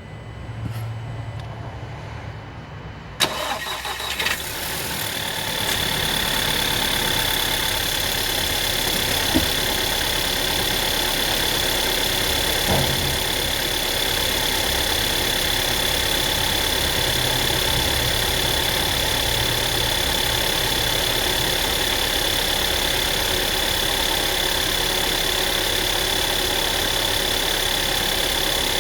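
2009 Volkswagen Tiguan engine cranking and catching about three seconds in, then idling steadily, with the rattling from the engine that the owner is recording.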